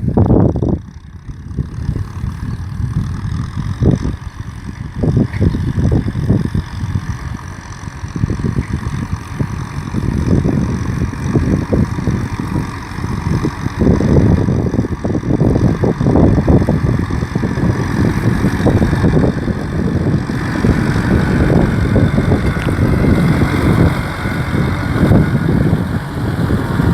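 Kubota M6040 SU tractor's four-cylinder diesel engine running, loud and rough, its level surging and easing unevenly throughout.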